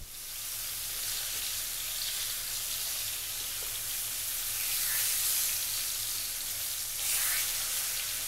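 Flour-dredged Nile perch steaks shallow-frying in sunflower oil in a frying pan: a steady sizzle that swells a little a few times as the pieces are turned.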